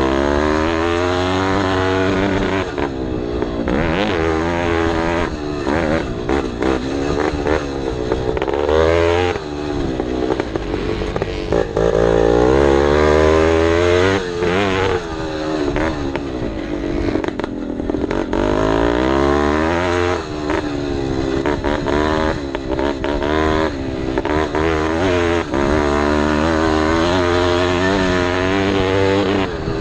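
Vintage motocross bike's engine heard from on board, revving hard with the pitch climbing and then dropping again and again as the rider works the throttle and gears around the track, over the clatter and rumble of riding on rough dirt.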